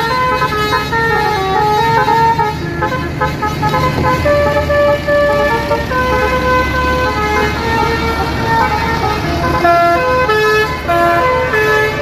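Basuri telolet horn on a Tunggal Jaya bus playing a fast tune of short notes at different pitches, over the bus's diesel engine running; the engine grows louder in the middle as the bus moves off.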